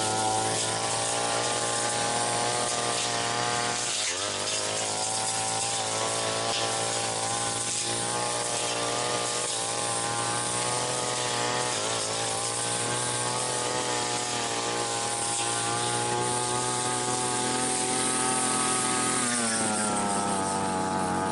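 Brush cutter's small petrol engine running at high speed while its blade cuts weeds. The engine pitch sags under load about four seconds in and again about twelve seconds in, then picks back up, and near the end it drops and settles to a lower speed.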